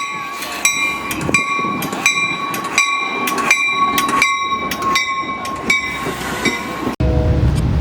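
Metra locomotive's bell ringing steadily as the train pulls into the station, one stroke about every 0.7 seconds. About seven seconds in it cuts off abruptly to a low rumble.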